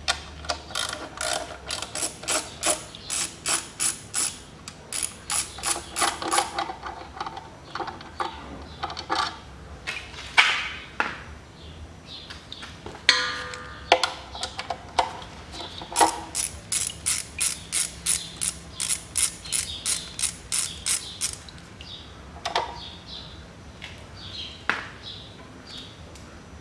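A hand ratchet on an extension clicking in several runs of quick, even clicks as the bolts holding an automatic transmission's oil filter are backed out. A few separate knocks of the tool come between the runs.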